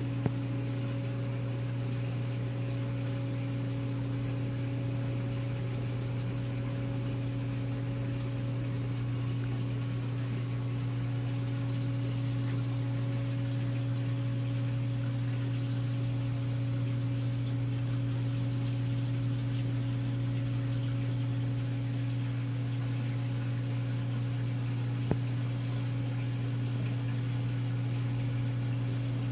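Aquarium pump humming steadily over a soft rush of circulating water, with two small clicks, one at the start and one near the end.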